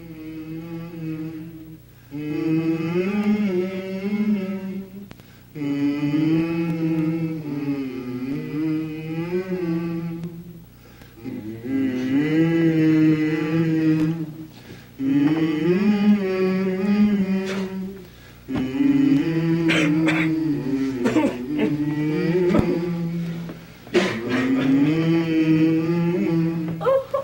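Male a cappella vocal group singing long held notes, in phrases of a few seconds with short breaks between them.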